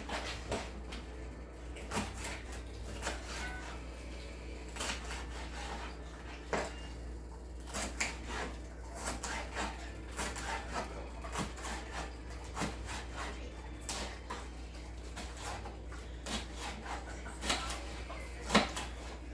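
Scattered light knocks and clicks of kitchen work, as utensils and vegetables are handled and set down on a countertop and cutting board, with one louder knock near the end. A steady low hum runs underneath.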